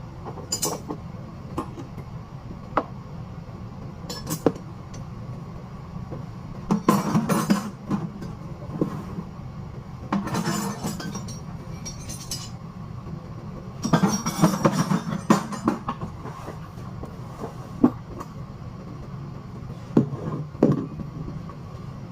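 Metal clinks and knocks of hand tools and metal parts being handled while a hydrant is repaired, coming in short clusters a few seconds apart, over a steady low machinery hum.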